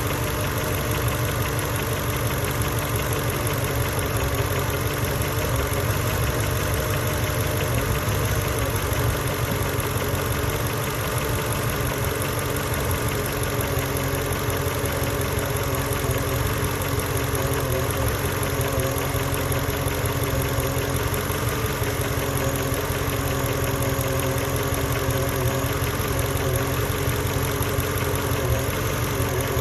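Mercedes E55 AMG's 5.4-litre V8 idling steadily but roughly after a cold start, with an uneven low pulsing. To the owner it sounds as if it is misfiring, though no fault codes are stored.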